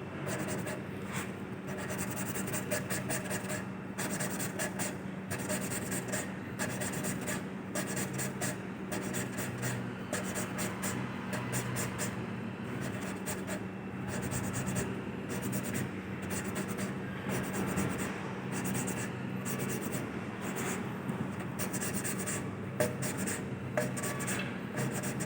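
Isuzu 6BG1 diesel engine valve being lapped against its seat in the cylinder head: gritty scraping in quick back-and-forth strokes that come in repeated bursts, over a steady low hum. The lapping is to reseat a leaking valve.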